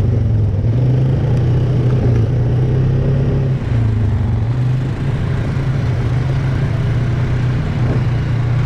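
ATV engine running steadily under way, its pitch rising and falling slightly with the throttle.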